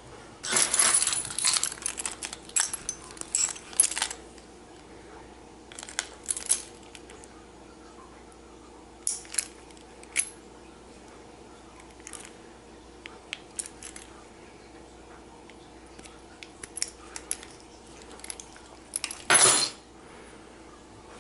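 Keys jangling for a few seconds, then scattered sharp clicks of small metal clippers trimming the tag ends of a freshly tied fishing-line knot, with another short metal rattle near the end.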